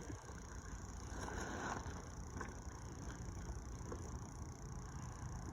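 Hands rummaging and scraping through loose potting soil in a container while searching for potatoes. The soft scratchy rustles are loudest about a second in, over a steady low background rumble.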